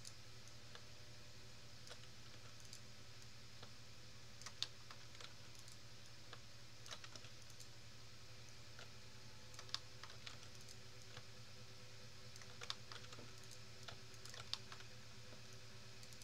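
Faint, scattered clicks of a computer keyboard and mouse, a few at a time with pauses between, over a steady low background hum.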